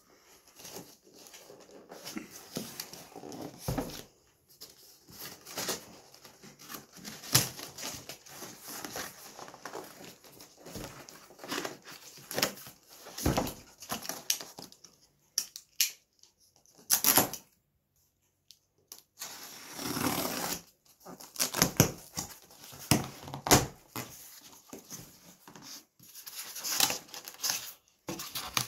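A cardboard box being opened with a utility knife: packing tape and plastic straps being cut and torn, and cardboard flaps scraping and rustling, in irregular sharp clicks and scrapes with a short pause about two-thirds of the way through.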